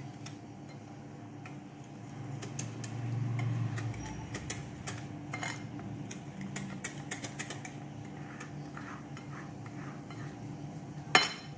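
Wire whisk stirring flour into a thick cake batter in a glass bowl, the wires scraping and clicking irregularly against the glass, with one sharper knock near the end.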